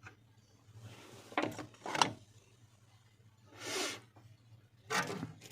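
Small tools and parts handled on a phone-repair bench: a few clicks and scrapes, and a short rubbing hiss a little before the end.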